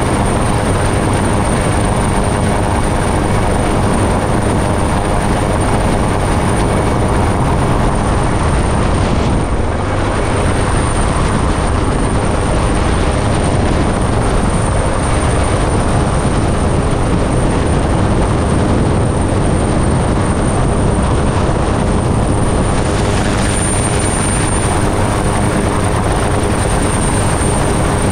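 Search-and-rescue helicopter, an AgustaWestland AW139, hovering: loud, steady rotor and turbine noise heard right at the open cabin door during a winch lift, dipping briefly about nine seconds in.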